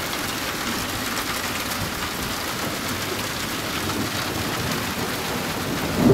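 Steady heavy rain falling in a summer thunderstorm. Just before the end a deep rumble of thunder starts and the sound grows suddenly louder.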